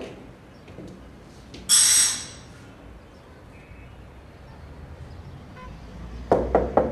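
Knocking on a wooden door, a few quick raps near the end. About two seconds in comes a single brief, high buzzing tone.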